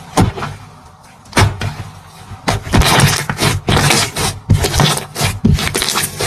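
Slime being squished and worked by hand, giving irregular clusters of sticky pops and crackles.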